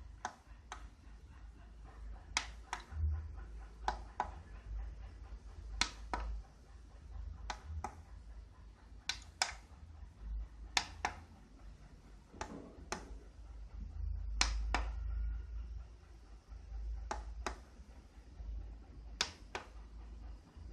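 Sharp clicks, mostly in close pairs, every one to two seconds, as the buttons of the LED wristbands' remote controller are pressed and released to switch colours and modes.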